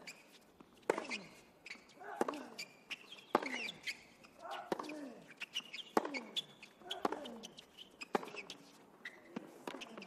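Tennis rally on a hard court: sharp racket strikes on the ball about once a second, alternating between the two players, each followed by a short grunt that falls in pitch.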